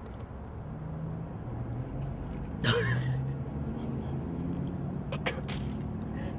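Car engine running with a steady low hum. A short, loud vocal sound from a person a little under halfway through, and a few sharp clicks past the middle.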